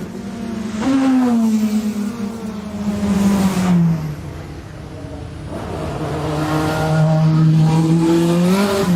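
A high-performance car's engine revving and accelerating hard. Its pitch jumps about a second in and falls away over the next few seconds, then climbs steadily again from about five seconds in.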